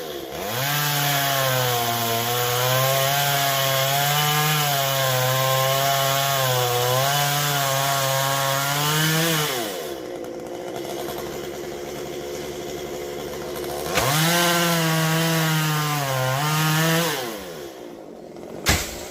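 Stihl two-stroke chainsaw cutting into a coconut palm trunk at full throttle, its pitch wavering under load. It drops back to idle for about four seconds, then revs and cuts again for about three seconds before easing off. A short sharp knock comes just before the end.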